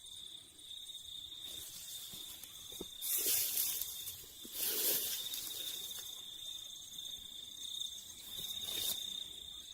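Steady high-pitched insect trill, cricket-like, with a faint pulsing beat above it, broken by a few short bursts of rustling noise about three, five and nine seconds in.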